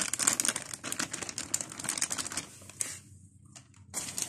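Flour being tipped out of a cut-open paper packet onto a steel tray. The paper packet crinkles and rustles in a quick run of ticks and crackles that thins out after about three seconds, with a short flurry again near the end.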